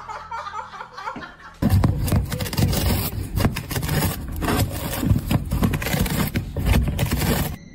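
Cat biting and chewing the edge of a cardboard box: a dense, irregular run of loud cardboard crunches and scrapes starting about a second and a half in.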